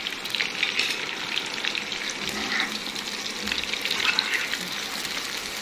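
Fish koftas deep-frying in hot oil in an iron kadai: a steady crackling sizzle with many small pops.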